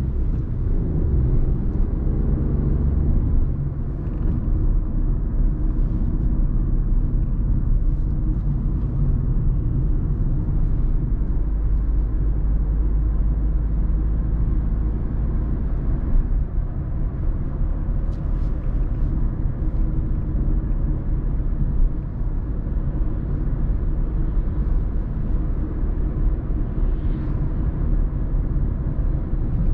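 In-cabin driving noise of a 2019 Volkswagen Polo with the 1.0-litre three-cylinder 80 hp petrol engine: a steady low rumble of engine and tyres on the road.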